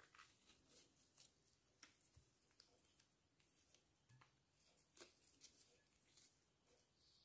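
Near silence with faint, scattered clicks and scrapes of a small knife cutting and trimming a fresh mushroom.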